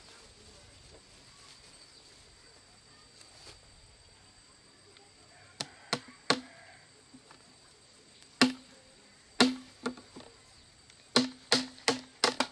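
Claw hammer driving a nail into a wooden post at a bamboo crossbar joint: three light taps about halfway through to start the nail, then a few harder single blows, then a quick run of five blows near the end.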